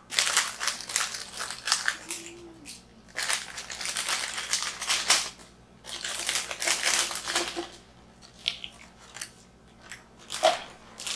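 Freshly made slime being squeezed and stretched by hand, giving off crisp crackling and crunching in several bursts of a second or two with short pauses between.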